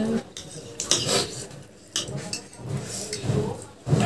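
Eating utensils clinking and scraping against a bowl of noodles, in several short, sharp clicks.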